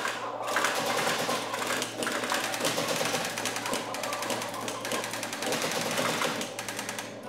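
Simulated machine-gun fire in a weapons-training simulator: long rapid bursts of shots with brief pauses between them.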